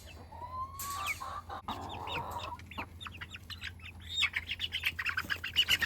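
Hens clucking and squawking, with chicks peeping; from about four seconds in, a rapid run of short high-pitched peeps grows louder.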